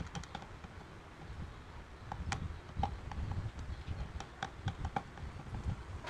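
Screwdriver driving screws into a hair dryer's plastic housing: scattered light clicks and taps of metal on plastic, most of them in the middle of the stretch. The footage is sped up to double speed.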